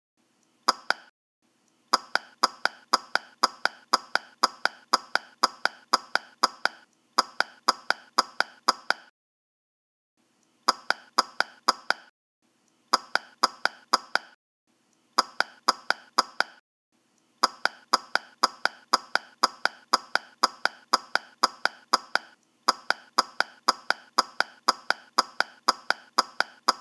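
Rapid runs of identical short clicks, about four or five a second, broken every few seconds by brief pauses: a repeated, looped clicking sound effect.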